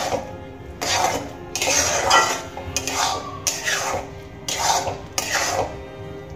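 Metal spatula scraping against a steel kadai while stirring thick cooked semolina dough, in repeated strokes about one a second.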